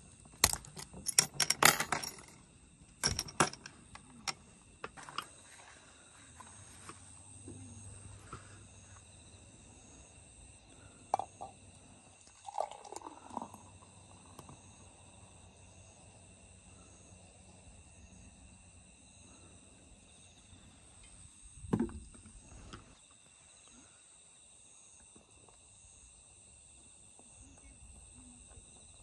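A Heineken bottle cap is pried off with a bottle opener, giving a few sharp metallic clicks and clinks at the start; about halfway through, beer is poured from the bottle into a cup. Insects trill steadily throughout, and there is a single thump about three quarters of the way through.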